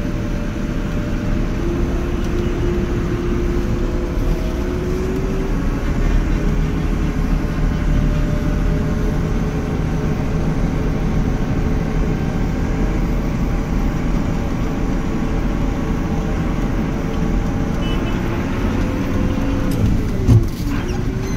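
Tractor engine running steadily, heard from inside the cab as the tractor crawls along, its note drifting slowly. Near the end the note drops quickly and there is a brief knock.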